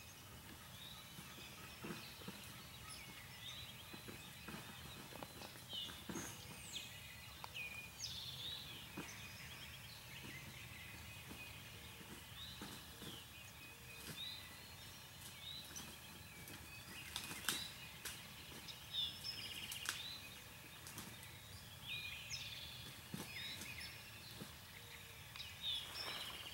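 Faint birds calling outdoors: many short chirping notes over a quiet background hiss, with a few soft clicks.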